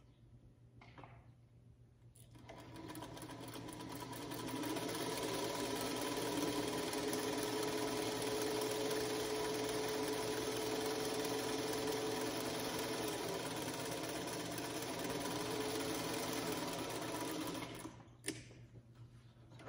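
Small black vintage-style electric sewing machine stitching a seam through quilt fabric strips. It starts about two seconds in, picks up speed over the next couple of seconds, runs at a steady speed, then stops near the end with a click.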